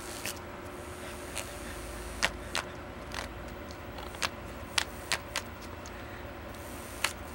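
Small battery-powered toy fan running with a steady faint motor hum, broken by about ten sharp, irregular plastic clicks and taps as a cat paws and nuzzles at its spinning blade.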